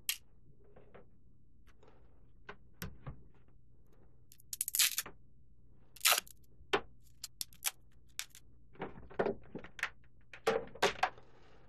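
Irregular clicks and knocks of a laptop and its power cable being handled and plugged in, with a burst of sharp clicks about halfway through and a cluster of knocks near the end.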